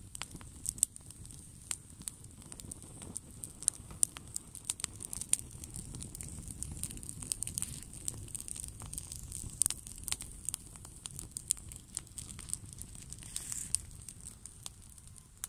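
Wood campfire of split logs and twigs crackling and popping, with many sharp, irregular snaps over a low rumble underneath.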